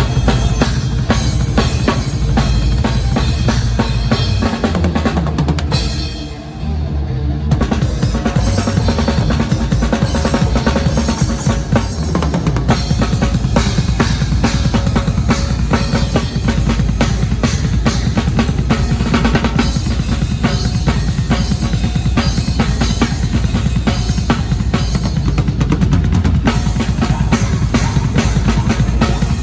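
Drum kit played hard in a metal band's soundcheck of the song, heard from close to the kit: rapid kick-drum and snare strokes over the full band. The playing briefly drops back about six seconds in, then comes back in full.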